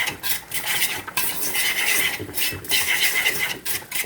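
A fork beating an egg with seasonings in a bowl: repeated quick scraping and clinking strokes of the fork against the bowl.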